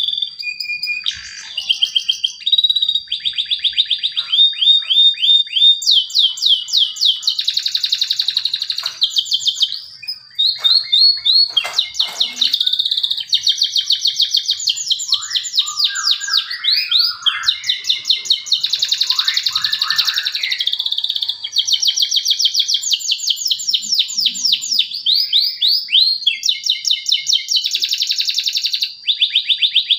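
Male domestic canary singing a long, unbroken song of rapid trills and rolls, each phrase a fast run of repeated high notes, with a steady high tone held under much of it.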